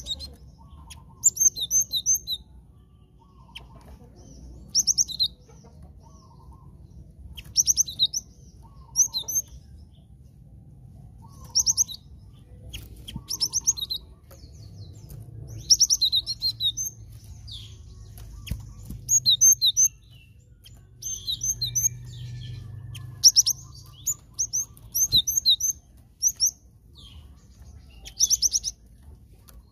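Cinereous tit (gelatik batu) calling and singing: short bursts of rapid, high chattering notes alternating with high two-note whistled phrases, repeated every one to three seconds, with occasional wing flutters.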